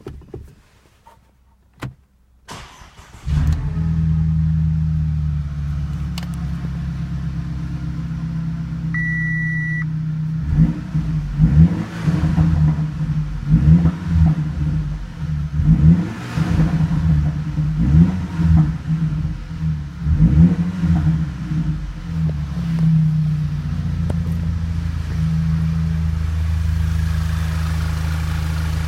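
Audi A5 engine starting after a few clicks and settling into a steady idle, with a short beep just before it is revved in a series of quick blips. It then drops back to a steady idle for the rest of the time.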